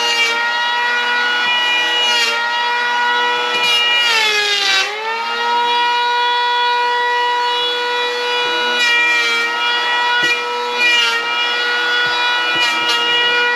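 Cordless electric hand planer running along a wooden board with a steady high whine. Its pitch sags briefly about four to five seconds in as it takes a heavier cut, then recovers.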